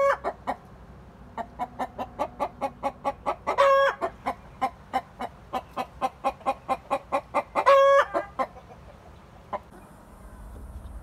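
Domestic hen cackling: a fast run of short clucks, about four or five a second, broken three times by a long drawn-out squawk. This is the hen's egg song, the cackle given around laying. It stops about three-quarters of the way through.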